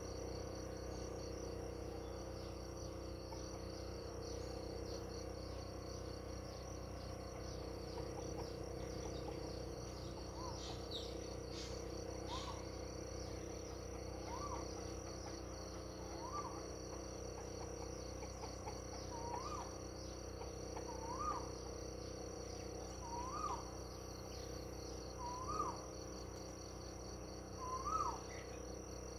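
Crickets trilling steadily and continuously. From about ten seconds in, a bird repeats one short call about every two seconds, growing louder toward the end.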